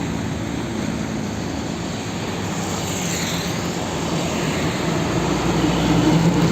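Toy cement mixer truck's electronic engine sound effect, a steady engine-like rumble that cuts in suddenly and grows slowly louder.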